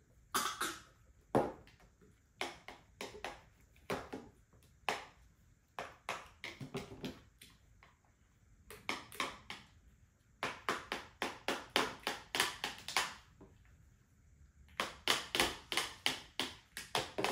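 Toddlers tapping and knocking on plastic booster-seat trays with their sippy cups and hands, in bunches of quick sharp taps, with two fast runs of about four taps a second: one in the middle and one near the end.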